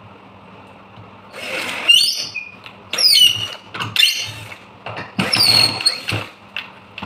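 Cordless drill's motor run in about five short bursts, each a whir with a high whine that slides in pitch and then holds briefly.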